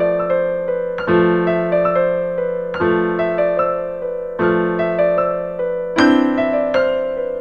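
Background piano music: a slow piece of struck chords with single melody notes stepping between them, a new chord about every one and a half seconds, each note dying away.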